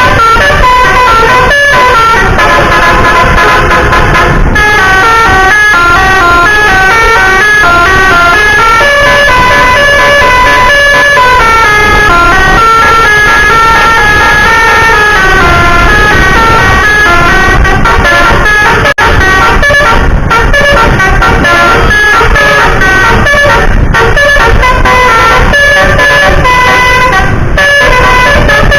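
Telolet basuri multi-tone vehicle horn playing a tune of short notes that step up and down, loud and continuous, over traffic noise.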